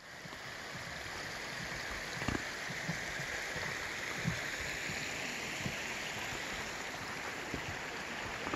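Steady rushing of a mountain stream, with a few soft, irregular footfalls on a wooden boardwalk.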